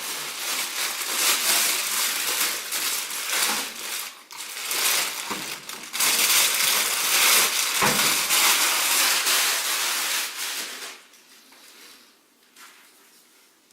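Packaging being handled during an unboxing: steady rustling and crinkling with a few knocks and a thump about eight seconds in, stopping about eleven seconds in.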